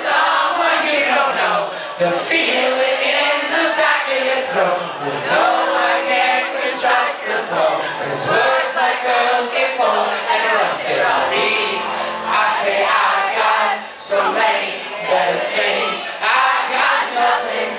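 Live rock band playing loudly with a male lead singer, drums and amplified instruments, recorded from the audience.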